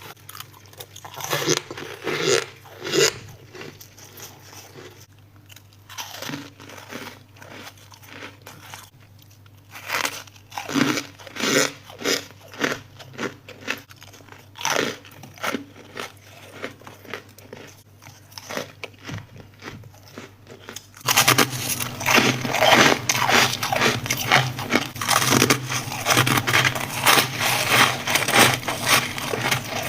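A person biting and chewing ice, with separate loud crunches. About two-thirds of the way through it switches abruptly to a louder, denser run of crackly crunching and scraping, as of frost or shaved ice.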